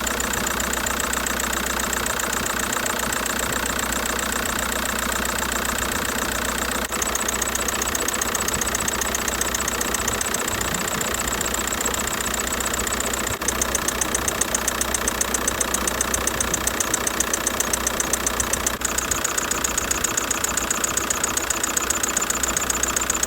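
1.9 TDI turbodiesel engine idling with a high-pitched whistle over the clatter, growing a little louder about seven and again thirteen seconds in.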